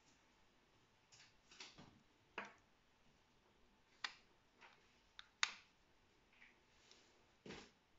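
Curta mechanical calculator being shifted: its knurled carriage is lifted and turned to the next digit position, giving a handful of scattered sharp mechanical clicks, the loudest about five and a half seconds in.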